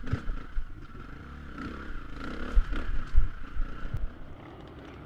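Enduro dirt-bike engine heard close from an onboard camera, revving up and down as it claws over rocks, with sharp knocks and clatter from the bike hitting the ground. About four seconds in, the sound drops to a quieter, steady background.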